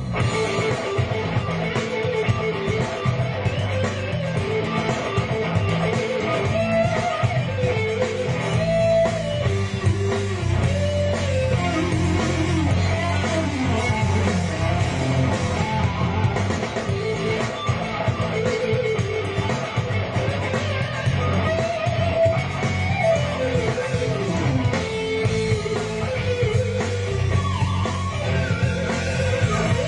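Instrumental rock: a Stratocaster-style electric guitar plays a lead melody with bent and sliding notes over a band backing with a steady bass line.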